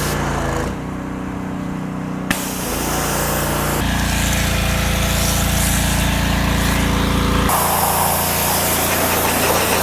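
Pressure washer running with a steady motor hum and spray hiss, in several stretches that change abruptly, as if cut together.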